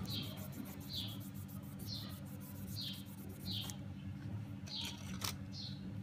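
A bird chirping over and over, one short falling chirp about once a second, over a steady low hum. A fast faint ticking runs through the first few seconds, and a sharp click comes a little past five seconds in.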